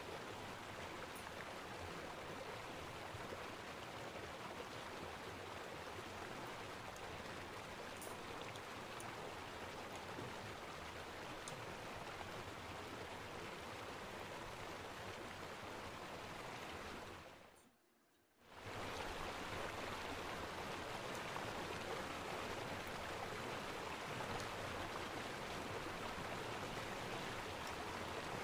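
A steady, even hiss, like rain or running water. It fades out for about a second past the middle and then comes back.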